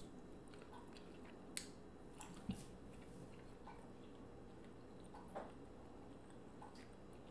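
Faint close-up chewing of seafood, with a few soft wet clicks and squishes from the mouth and sauce-covered fingers.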